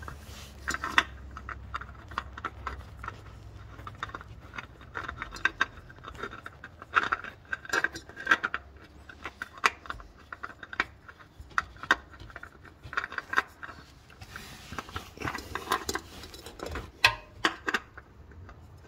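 Hands fitting a new spin-on oil filter to a Toyota Corolla engine and turning it on by hand: scattered clicks, taps and knocks of metal and plastic, with a brief scraping about fifteen seconds in.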